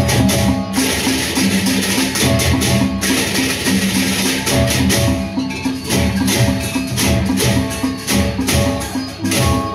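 Sasak gendang beleq ensemble playing: large double-headed barrel drums beaten with sticks in a driving repeated rhythm, with clashing cymbals and ringing pitched gong tones over it.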